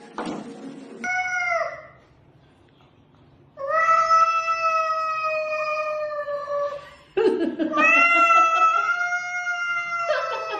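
A cat yowling: one short meow that drops in pitch at the end, then two long, drawn-out, steady yowls of about three seconds each.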